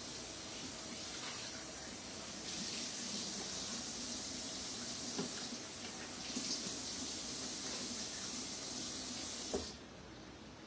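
Kitchen faucet running into the sink as fresh basil is rinsed under it, a steady hiss of water that gets stronger a couple of seconds in. The tap is shut off abruptly near the end.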